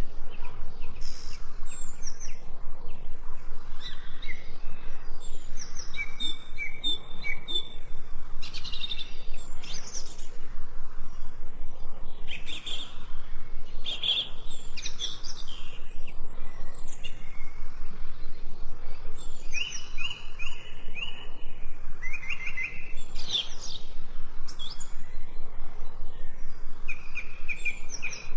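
Songbirds chirping and trilling, many short repeated notes and quick trills from more than one bird, over a steady rush of water.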